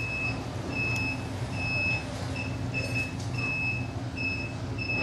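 Digital multimeter's continuity buzzer giving a string of short, high beeps, about eight or nine at uneven spacing, as the probes touch the points of a phone's earpiece circuit, over a low steady hum.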